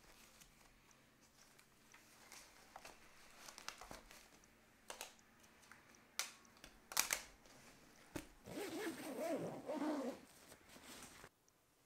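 Padded camera bag being handled: fabric rustling and light knocks as camera gear is set into its compartments, then a zipper drawn along the bag for about two seconds near the end.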